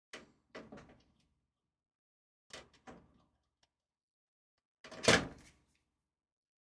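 Short clicks and knocks of hard parts and tools being handled inside a desktop PC case, in three separate clusters, the loudest a heavier clunk about five seconds in.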